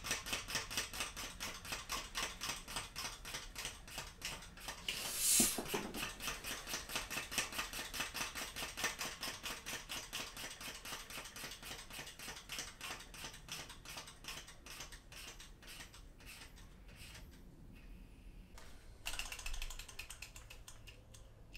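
3D-printed PLA compressed-air engine running at very low RPM on one pump of air, clicking with each stroke about four to five times a second. The clicks grow fainter and sparser as the air runs down. A brief rush of noise about five seconds in.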